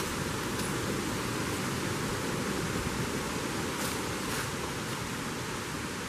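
Steady rushing of a nearby brook, with a few faint footsteps on dry fallen leaves.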